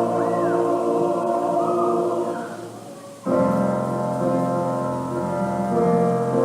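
Liturgical choir singing held chords with piano accompaniment. The sound fades down, then a little past three seconds in comes back suddenly on a new chord, with the piano prominent.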